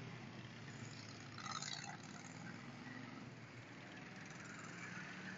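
Racing ride-on lawnmowers' small engines running faintly in the distance as the mowers drive away down the track, a low hum under a steady wash of noise.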